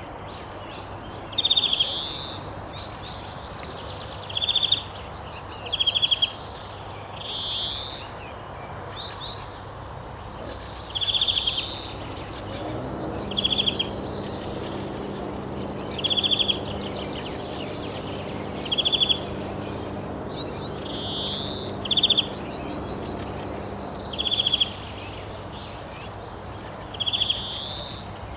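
A bird calling over and over, roughly every two to three seconds, each call a short rapid trill with a quick rising note, over a steady background hiss. A low steady hum joins about halfway through.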